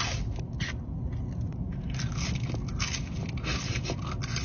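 Close-up chewing of french fries: irregular crisp crunching bites, several times a second to every half second or so.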